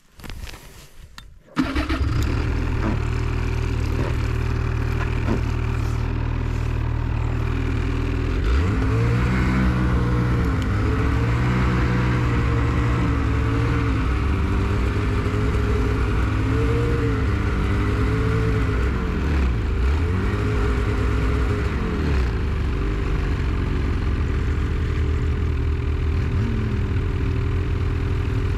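Ski-Doo Expedition Xtreme snowmobile engine running while riding along a trail. The note is steady at first, then rises and falls with the throttle from about eight seconds in.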